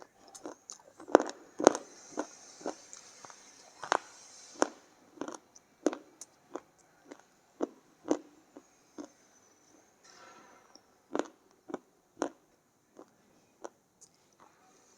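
Pieces of dry baked clay being bitten and crunched between the teeth: a string of sharp, crisp cracks, irregular, about one or two a second.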